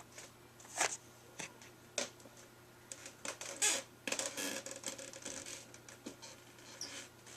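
Scattered light clicks and taps with a short stretch of rustling, the sound of a carded Hot Wheels die-cast car in its plastic blister pack being handled.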